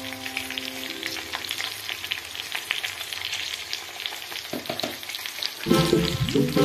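Onion and tomato frying in hot oil in a wok, a steady crackling sizzle with light scrapes of the spatula. Background music fades out in the first second and a new tune comes in loudly near the end.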